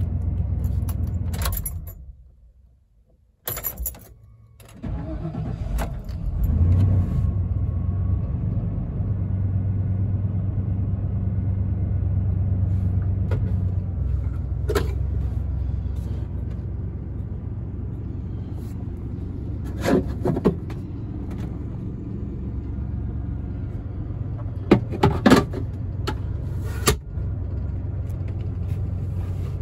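1993 Ford Bronco Eddie Bauer engine switched off and running down to near silence, a couple of key clicks, then restarted and settling into a steady idle. A few sharp clicks and rattles come near the middle and end.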